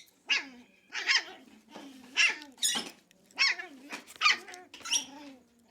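Angry dogs barking: about seven sharp barks, roughly one a second.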